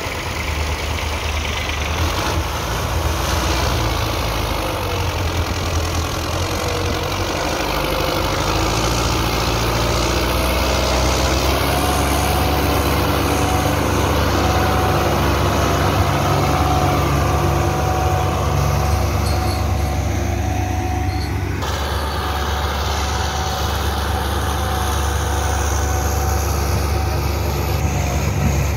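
Belarus 510 tractor's diesel engine running steadily under heavy load in third gear, pulling a fully laden trolley of grain sacks.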